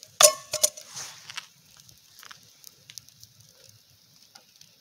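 A sharp metallic clang on the steel drum cooker about a quarter second in, ringing briefly, then two quick knocks. After that come faint, scattered crackles and ticks from the wood fire under the drum.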